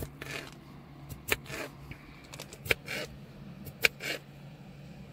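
Cucumber being chopped, with short, irregular knocks from the blade, about eight in a few seconds, over a faint low steady hum.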